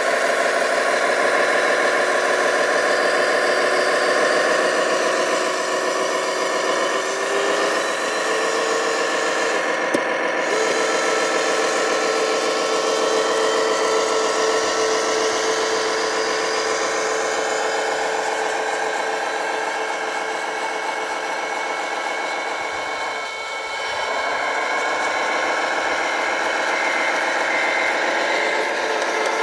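RC Globe Liner truck's sound module playing a diesel engine idling, with a steady whine alongside as the hydraulic tipper body is lowered.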